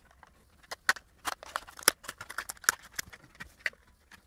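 Scissors cutting through a clear plastic blister pack, a quick run of sharp, irregular snips and crackles of stiff plastic.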